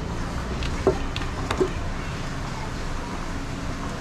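A few light metallic clinks from a metal spatula tapping a steel plate of fried meat, the clearest about a second in and again half a second later, over a steady low background rumble.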